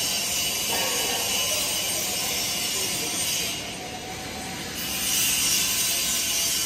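Steady hiss of TIG welding on a 6-inch stainless steel pipe joint, heard over workshop noise. The high part of the hiss drops out for about a second, roughly three and a half seconds in, then returns.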